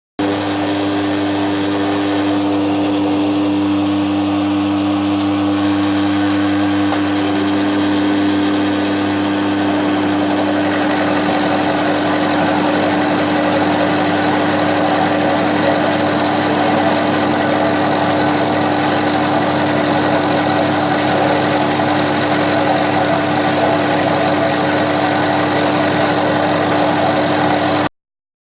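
Milling machine running with a steady motor hum and a strong constant tone; about eleven seconds in a harsher, rougher noise rises over it, typical of the cutter taking a pass along the edge of a cast iron table.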